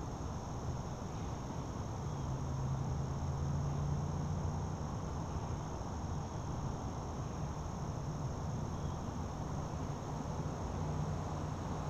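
Crickets chirring steadily in woodland, with a low hum underneath that swells from about two seconds in and again near the end.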